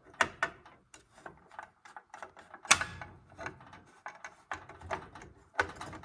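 Clatter of hard objects being handled and moved: an irregular run of clicks and knocks, with one louder knock just under three seconds in.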